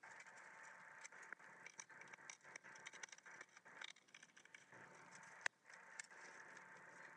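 Quiet handling noise: small clicks, taps and scrapes of hands and a thin metal tool on a cracked HP 14-CK laptop case, over a steady hiss. One sharper click comes about five and a half seconds in.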